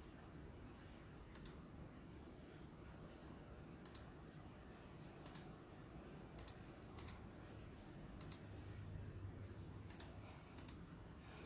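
Near silence: room tone with faint, sharp clicks scattered irregularly, about eight in all.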